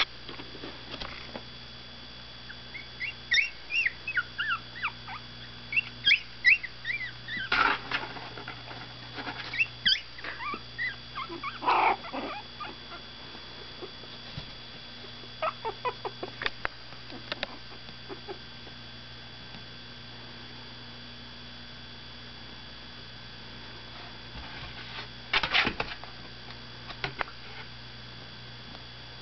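Newborn Miniature Pinscher puppies, about 17 days old, squeaking and whimpering in short high-pitched calls as they wake. The calls come thickly in the first half, then thin out, with a brief flurry near the end over a steady low hum.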